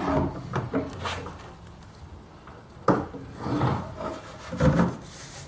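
Handling sounds of a flexible dust-collection hose being picked up and shown: a few short knocks and several rubbing scrapes.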